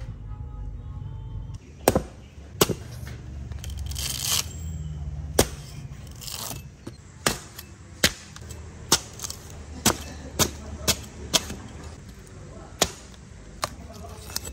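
A cleaver chopping into the husk of a young green coconut: about a dozen sharp strikes, roughly one a second, with a couple of rasping tears as strips of husk are pulled away.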